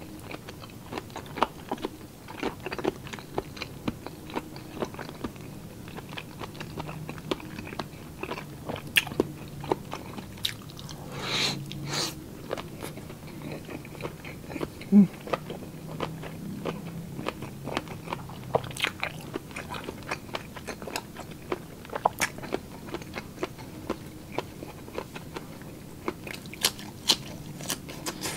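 A person chewing mouthfuls of food close to the microphone: wet mouth smacks and crunching bites, many short clicks scattered irregularly throughout.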